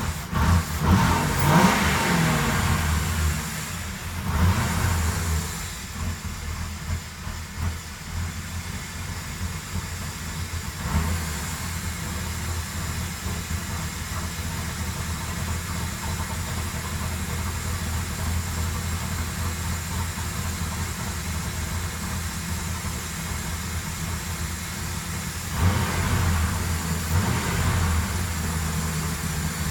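Ford Crown Victoria's 4.6-litre V8 running steadily, revved up briefly three times: in the first few seconds, about four seconds in, and near the end.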